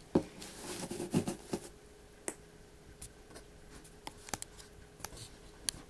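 Faint handling noises: a little rustling in the first second or so, then a few scattered light clicks and taps, over a low steady hum.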